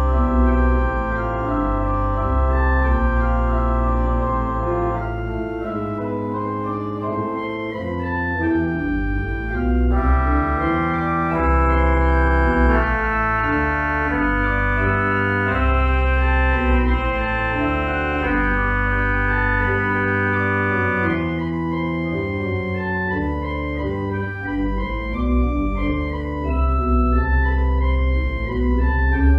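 Church organ playing a postlude: full sustained chords over deep pedal bass notes that change every second or two, the pedal dropping out for a few seconds now and then.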